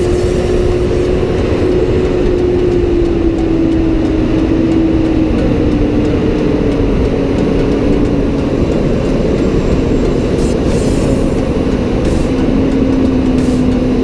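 Fendt tractor's engine running under load while pulling a reversible plough through the soil: a steady, heavy drone whose tone slowly drops a little in pitch.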